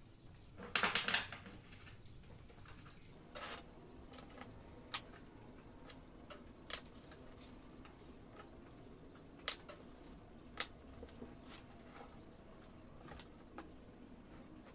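Small wooden segment blocks of kruing and sungkai wood clicking against each other and on a tabletop as they are handled and set down. A short rattling clatter comes about a second in, followed by sparse single clicks.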